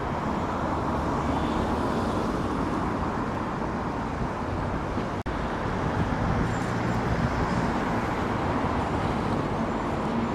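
Street traffic noise: a steady wash of passing cars and engines, with a brief dropout about five seconds in.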